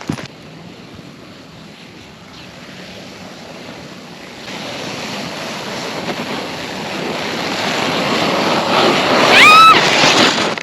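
Sled sliding down a snowy slope, the rushing hiss of snow growing louder and louder as it picks up speed, with a short high squeal near the end.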